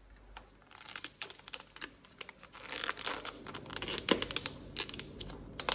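Clear plastic dome lid being pressed down onto a plastic cup, crinkling and clicking as it snaps on around the rim, with the sharpest click about four seconds in.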